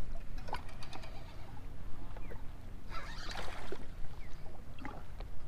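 Water sloshing against the hull of a Sea-Doo, with a steady low rumble and scattered small knocks. A hooked smallmouth bass splashes at the surface about three seconds in.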